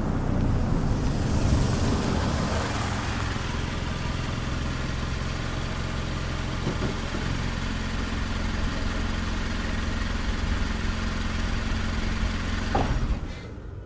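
Mazda CX-5 small SUV driving in and pulling to a stop, its tyre and engine noise loudest in the first couple of seconds, then settling to a steady idle. Near the end a click is followed by the engine being switched off and the sound dying away.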